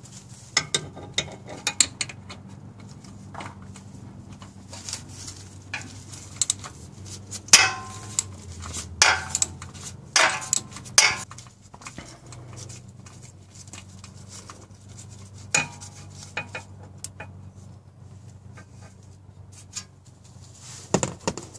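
Socket wrench working a 10 mm bolt on a steering rack bushing's metal strap: scattered metallic clinks and clicks of the socket, extension and wrench against metal, coming thickest in the middle of the stretch.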